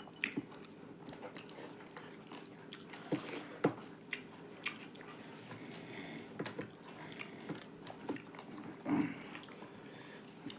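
Close-up eating sounds: chewing and lip smacking on a rice, dal and vegetable curry meal, with scattered short clicks.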